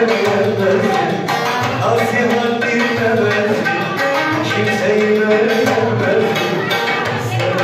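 Live band playing Turkish folk dance music: a keyboard melody over a steady drum rhythm, with no singing.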